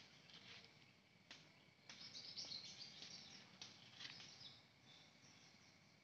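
Faint birds chirping and twittering, busiest from about two seconds in, over a thin steady high tone, with a few faint clicks.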